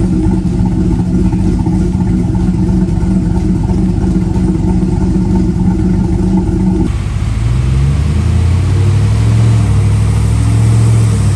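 4.8-liter LS V8 with a low lobe-separation Little Chopper cam running steadily at low speed through its exhaust. About seven seconds in, a cut brings the same engine running on a chassis dyno, its pitch rising and then holding.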